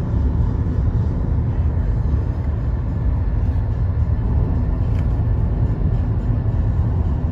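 Steady low rumble of road and engine noise heard inside a moving car.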